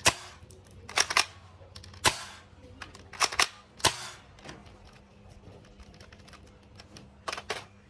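Toy sniper rifle firing: about nine sharp snaps at uneven spacing, some in quick pairs, with a pause of about three seconds before the last two.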